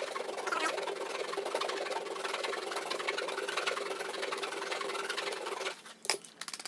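Hand file rasping in quick strokes at the rim of a cigarette lighter socket opening, enlarging it so a USB charger will fit. The filing stops near the end, followed by a single knock.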